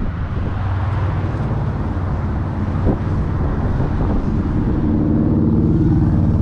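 An engine running with a steady low hum, growing louder over the last second or so.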